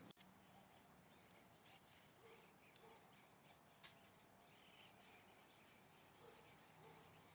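Faint scattered bird chirps and calls over a quiet background hiss, with one sharp click a little under four seconds in.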